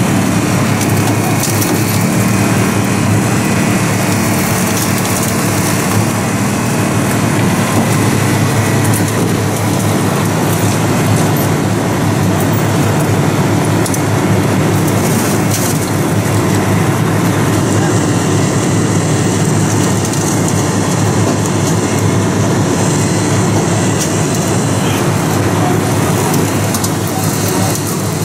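Holmatro hydraulic rescue-tool power unit running steadily, powering the extrication tools, with a dense background of engine and traffic noise.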